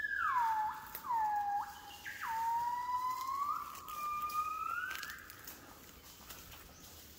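Southern yellow-cheeked gibbon song: a long high whistled note that slides down, then a run of notes that jump up and swoop down. The song ends in notes that climb in pitch and stops about five seconds in.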